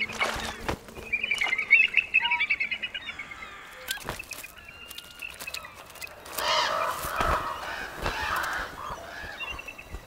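Bald eagles squabbling over salmon carcasses: wing flaps, then a fast series of high, piping chattering calls about one to three seconds in. Around six seconds in, harsher, noisier calls come from the crows and gulls feeding on the carcasses.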